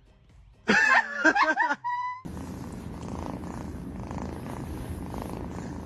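A domestic cat purring steadily and close up, starting about two seconds in. Just before it comes a short call with wavering pitch, then a brief steady tone.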